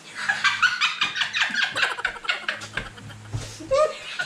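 People laughing hard: a high-pitched burst of quick, rapid laughter pulses that trails off into looser laughs and a short vocal cry near the end.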